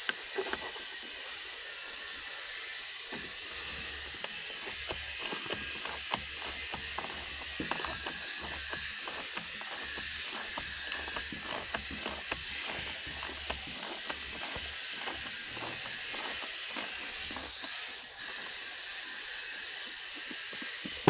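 Many small irregular clicks and ticks of a hand tool and screws as T20 Torx self-tapping screws are undone from a motorcycle's plastic air filter cover, over a steady hiss.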